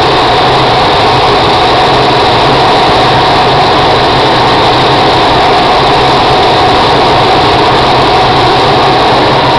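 Loud, steady rush of air inside a glider's cockpit during an aerotow, mixed with the even drone of the light tow plane's engine ahead.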